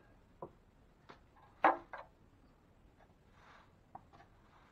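Drywall knife clicking and scraping against the ceiling while joint compound is skip-trowelled on: a few sharp taps, the loudest about one and a half seconds in, and a short soft scrape about three and a half seconds in.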